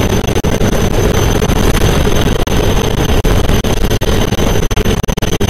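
Loud, steady engine rumble mixed with rushing noise, with a constant thin high whine over it.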